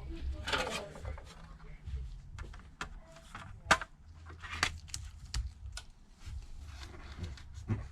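Light, irregular clicks and taps of precision tools and tiny screws against the metal shield plate inside an iPad mini 2, with one sharper click about three and a half seconds in.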